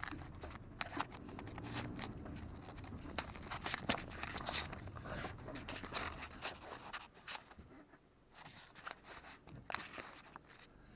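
Cabin sound of a 2020 Toyota RAV4 driving over rough desert dirt: a low rumble with many irregular clicks, knocks and scraping rattles from the bouncing vehicle. The sound eases off for a moment about eight seconds in.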